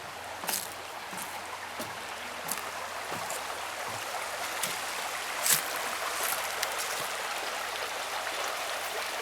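Running water: a steady rushing hiss with scattered small clicks and drips, slowly growing louder.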